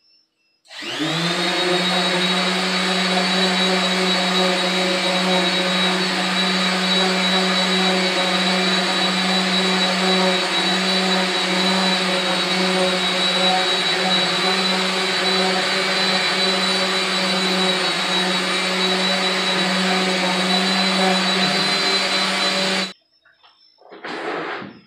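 Small corded electric orbital buffer running steadily on a plastic lens, a hum with a high whine. It starts about a second in and switches off abruptly near the end, followed by a few brief handling knocks.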